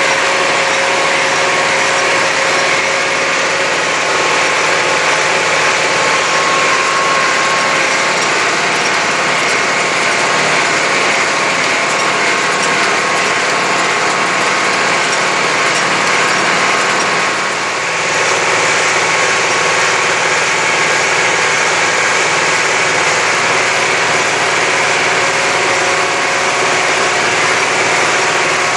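Air-cooled Deutz tractor diesel running steadily under load, heard from the driver's seat while it drives a Fahr small square baler. The sound dips briefly about two-thirds of the way through.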